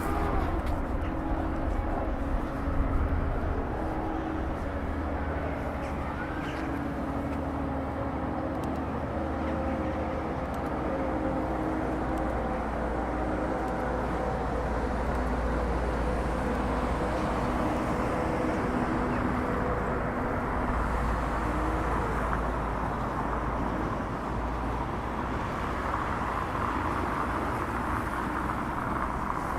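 Steady mechanical hum over a constant low rumble, with several held tones that drift slightly in pitch.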